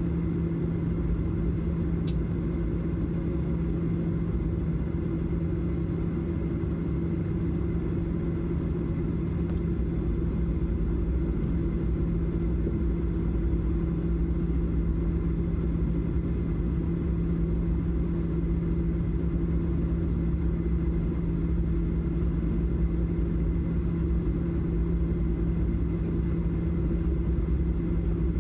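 Steady engine and road drone from inside a moving vehicle: a low rumble with an even hum.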